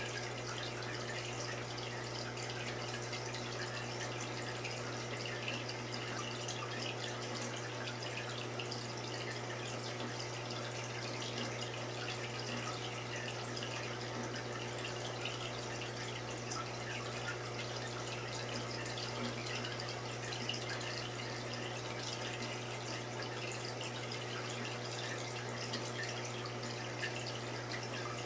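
Saltwater reef aquarium's circulating water, a steady trickling and bubbling over a constant low pump hum.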